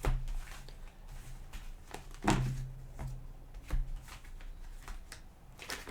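Tarot cards being handled, with a few sharp card snaps, the loudest near the start, after about two seconds and just under four seconds in, over a low steady hum.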